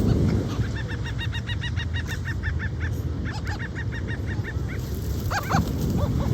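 Seagulls calling: a quick run of short, arched squawks through the middle, then a few louder cries near the end, over a steady low background noise.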